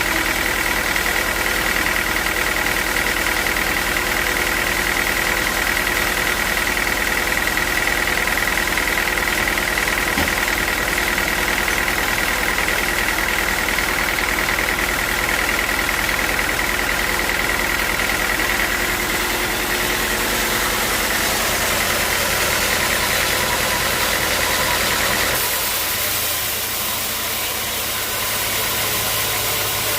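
Engine-driven bandsaw sawmill running steadily while sawing a teak log, with a high, steady whine that fades about two-thirds of the way through. The sound changes abruptly near the end.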